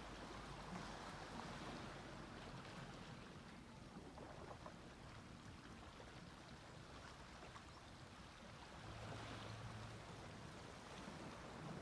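Gentle sea waves washing onto a beach, faint, swelling again near the end.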